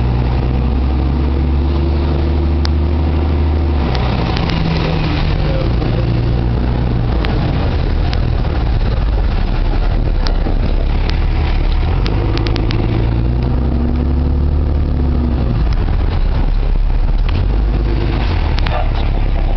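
Engine and road noise of the armored Tornado Intercept Vehicle driving, heard from inside its cabin. The engine note holds steady, then shifts in pitch several times as it changes speed.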